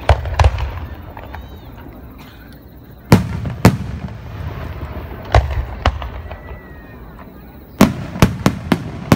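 Aerial firework shells bursting overhead, about ten sharp booms over a low rumble. They come in pairs two or three seconds apart, then a quick run of four near the end.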